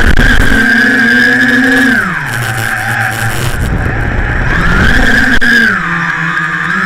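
The quadcopter's four Turnigy Aerodrive SK3 2826-1130kv brushless outrunner motors and propellers whining, heard from a camera on board. The pitch is high at first, drops about two seconds in, climbs back after about four seconds and drops again near the end as the throttle changes. Air rumbles on the microphone in the first second.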